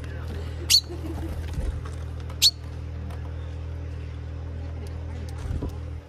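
Two short, sharp calls from a chaffinch close to the microphone, about a second and a half apart, over a steady low hum.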